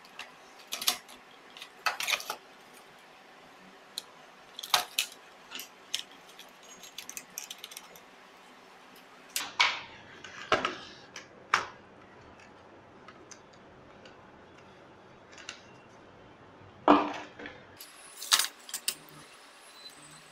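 Irregular clicks, taps and clatter of plastic and metal parts handled on a tabletop as a Dell Latitude E6410 laptop's plastic palmrest is worked loose and lifted off its chassis. The loudest knock comes near the end.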